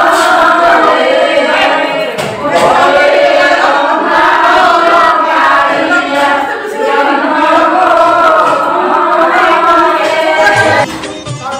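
A group of worshippers singing a devotional hymn together, many voices at once. Near the end it cuts abruptly to recorded devotional music with tabla.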